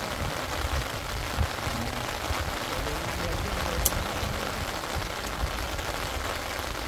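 Steady rain hiss with gusts of wind rumbling on the microphone, and a single sharp click about four seconds in.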